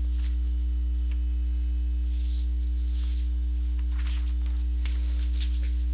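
Steady electrical mains hum, a low buzz with a few higher overtones, with faint scattered hiss above it.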